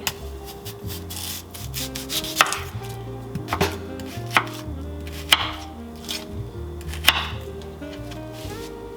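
Kitchen knife chopping an onion on a cutting board: about six separate, unhurried cuts, each a sharp knock, spaced irregularly a second or more apart, the slow pace of someone unsure how to chop.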